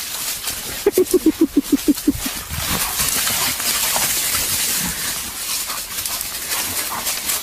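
A dog fighting a wild boar: a quick run of about ten short calls about a second in, each slightly lower than the last, then a steady rustling, scuffling noise.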